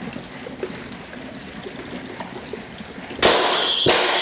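HHO (hydrogen-oxygen) gas bubbling and gurgling up through a bucket of water. About three seconds in, the bubbles are lit by a torch and go off with a very loud bang, followed by a second sharp crack. A high steady alarm tone, set off by the blasts, starts right after.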